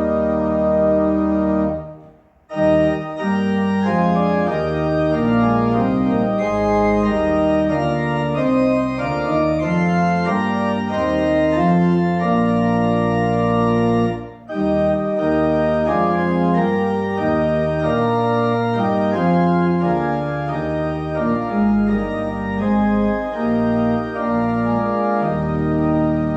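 Church organ playing sustained chords in a slow hymn-like piece, with two brief breaks between phrases, about two seconds in and again about halfway.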